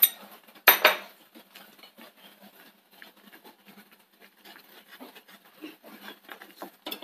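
Wooden spatula stirring a fish curry in an earthenware clay pot, knocking and scraping against the pot's sides in many small irregular clacks. There is a louder knock about a second in.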